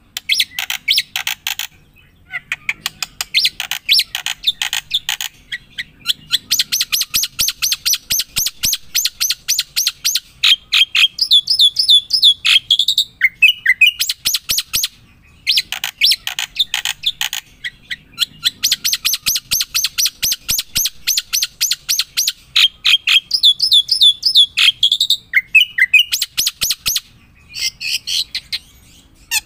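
A bird singing a long, fast chattering song of rapid high notes, each phrase ending in a few quick downward-sliding whistles; the same phrase comes twice.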